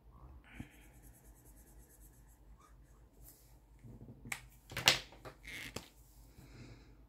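A felt-tip marker scribbling on a paper chart as small circles are coloured in. A few seconds later comes a cluster of sharp clicks and taps, the loudest about five seconds in.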